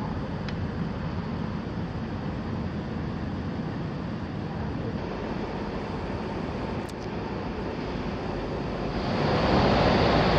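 Steady rumble and hiss inside a Chinese high-speed train carriage, growing louder about nine seconds in.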